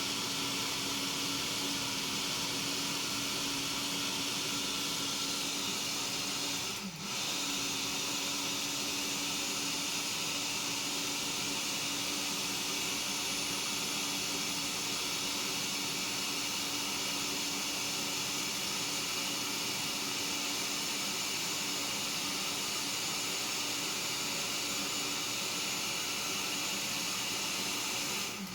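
Electric blender running steadily as it blends fruit into juice, with a brief dip in the motor about seven seconds in.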